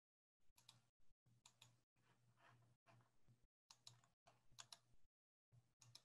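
Very faint clicks and taps of a computer keyboard and mouse over a low hum, mostly near silence, the sound cutting in and out.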